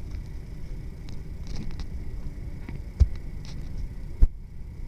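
Thin plastic bag with fish inside rustling and crinkling as it is handled close to the microphone, over a low wind rumble, with two sharp knocks about three and four seconds in.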